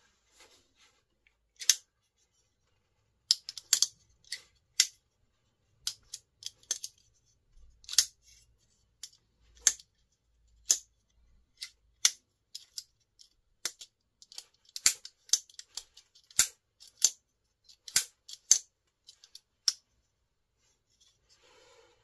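Benchmade Freek 560 folding knife with carbon fibre handles, its blade flicked open and snapped shut again and again: about two dozen sharp metallic clicks at uneven intervals, often in quick pairs, as the AXIS lock engages and releases.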